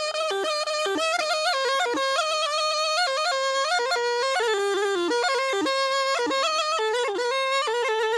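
Zurna, the Turkish double-reed shawm, playing a loud, bright folk melody with quick ornamented turns and short held notes.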